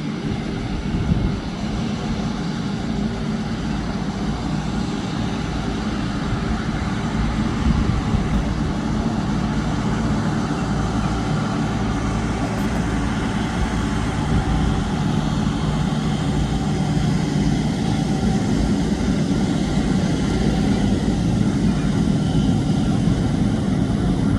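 Jet noise from a Boeing 777-200ER on the ground: a steady rumble with thin, constant whines above it.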